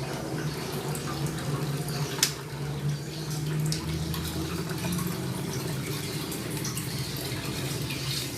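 Water running in a Samsung washing machine over a steady low hum, with one sharp click about two seconds in. The machine has been started on spin but the spin does not turn, which the repairman takes for a jam.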